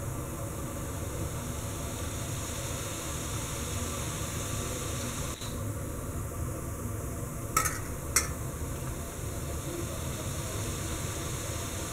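Steady hiss of water boiling for steaming momos, with two sharp clicks about half a second apart past the middle as momos are set on the perforated steel steamer plate.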